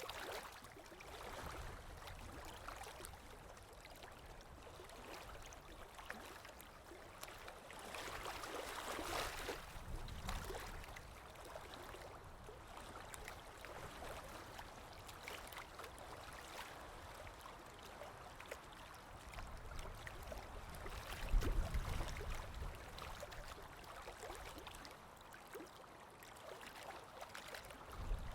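Small ocean waves lapping, a continuous wash of water with small splashes and gurgles. A wave swells up about eight seconds in, and a heavier, deeper slosh about twenty-one seconds in is the loudest moment.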